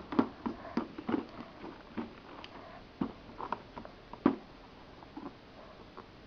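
Scattered light taps and knocks of small objects being handled and set down, closer together at first and sparser later, with the loudest knock a little past four seconds in.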